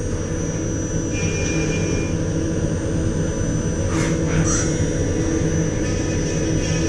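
CNC vertical milling machine running with a steady low hum and a constant high-pitched whine, with a brief hiss about four seconds in.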